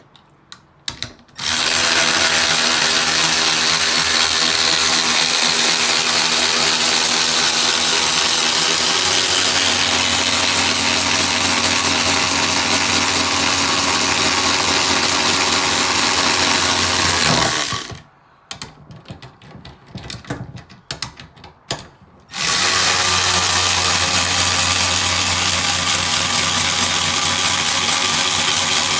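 Two cordless electric ratchets, a 12-volt Milwaukee and a knockoff that takes a DeWalt battery, running together and whirring steadily with gear noise as they drive fasteners down. They stop a little past halfway, with a few clicks, then start up again for the rest.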